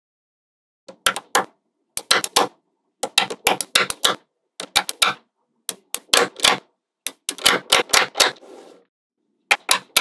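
Small neodymium magnetic balls clicking sharply as strips of them snap onto a slab of magnet balls. The clicks come in quick clusters of three to five, about one cluster a second, starting about a second in.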